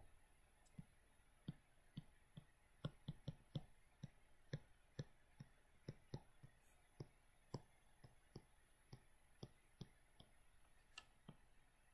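Faint, irregular clicks of a stylus tip tapping on a tablet screen while handwriting, about three a second.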